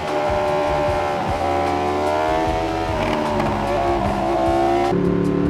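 Ducati Streetfighter V2's 955 cc L-twin engine running through an Austin Racing exhaust while riding. Its pitch wavers a few times, then drops suddenly near the end.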